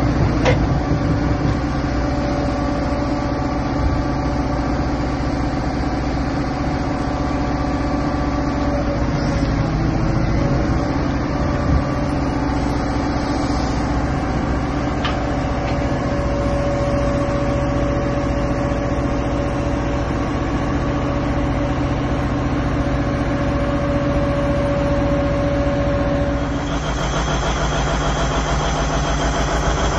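Caterpillar 992G wheel loader's large diesel engine running steadily as the raised bucket is worked, with a steady whine over the engine note. The sound changes abruptly a few seconds before the end.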